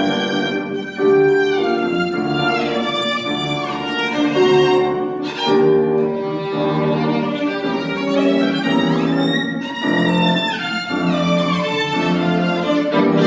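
Violin music: a bowed melody played continuously, with some notes sliding in pitch.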